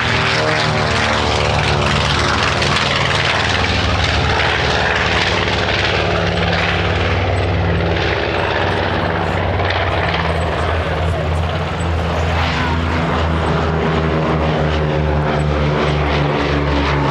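Twin Wright Cyclone radial piston engines of a North American B-25J Mitchell running, a loud steady propeller drone whose pitch drifts slightly.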